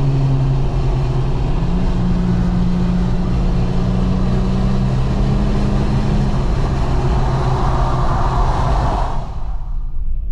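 Car driving at highway speed, heard from inside the cabin. A steady engine drone steps up in pitch about two seconds in and holds, over a loud rush of road and wind noise. Near the end the rushing noise drops away sharply.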